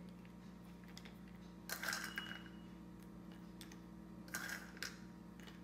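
A few faint, light clicks and rustles, about two seconds in and again past four seconds, as chopped nuts are sprinkled by hand onto glasses of falooda, over a faint steady hum.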